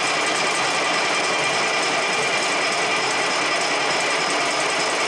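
Starter cranking the Case IH 9350 Steiger's diesel engine steadily without it catching: the engine is not getting fuel.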